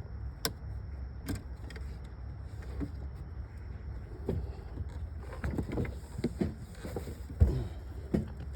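Scattered sharp clicks and knocks of a battery kill switch, terminal hardware and tools being handled and fitted at a car battery, over a steady low hum. The loudest knock comes about three-quarters of the way through.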